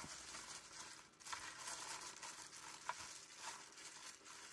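Plastic-gloved hand turning raw trout pieces over in a bowl: faint, soft rustling and crinkling, with a few light ticks.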